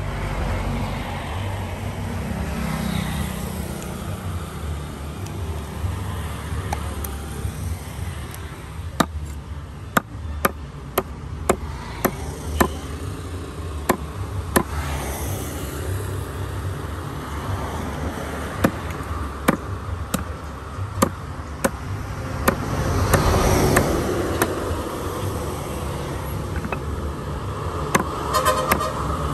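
Large kitchen knife chopping through an eel onto a wooden tree-stump block: a run of sharp, irregular chops about one a second through the middle of the stretch and a few more near the end. Under them is a steady low rumble that swells briefly past the middle.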